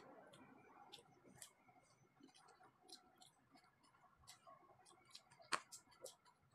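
Faint, scattered clicks from eating with chopsticks, the sticks tapping the food container and mouth sounds of eating, with one sharper click about five and a half seconds in.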